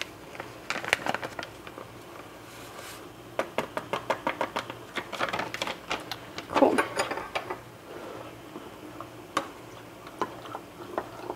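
A spoon clinking and tapping against a small cup in quick runs of light clicks, stirring taco seasoning into water to make a sauce.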